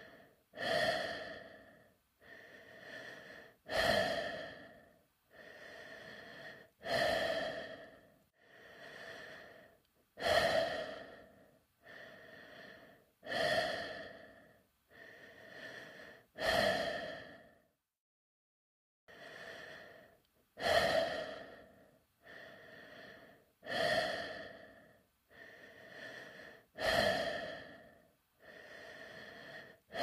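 A person breathing inside a space helmet: slow, even breaths, a louder one about every three seconds with a softer one between, and a brief pause a little past the middle.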